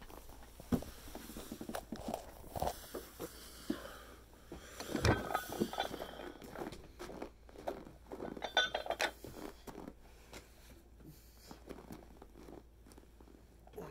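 Footsteps in snow and knocks and rustles from handling the phone and cast iron dumbbells, with a brief ringing clink about eight and a half seconds in; it is quieter after about ten seconds.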